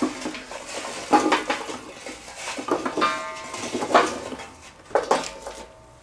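Glowing charcoal briquettes tipped out of a metal chimney starter into a steel fire bowl: a series of clattering knocks in several bursts as the coals tumble out and the chimney is shaken, each with a short metallic ring, dying away near the end.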